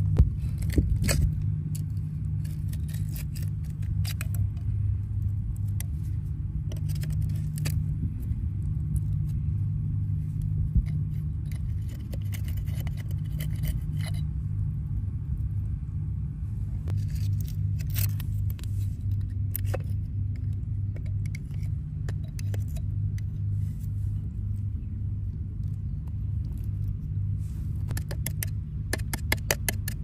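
Metal prying tool tapping and scraping against oyster shells on a rock, in irregular clusters of sharp clicks, over a steady low rumble.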